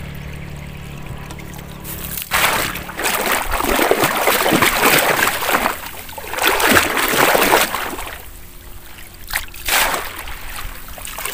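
Shallow muddy pond water splashing and sloshing as it is waded through and swept with a long-handled scoop net, in several loud surges over about six seconds, then two short splashes.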